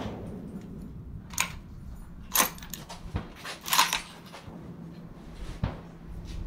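Bolt of a Savage AXIS II .223 bolt-action rifle being cycled between shots: a string of sharp metallic clicks and clacks as the bolt is lifted, drawn back to eject the spent case, then pushed forward and locked on a fresh round.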